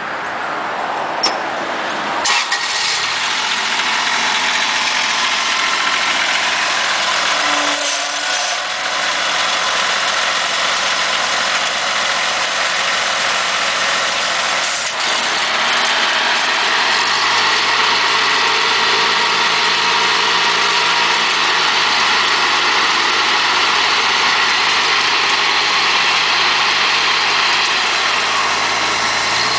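A Toro zero-turn riding mower running. A sharp click about two seconds in is followed by a louder, steady sound, and the pitch shifts slightly a couple of times later on.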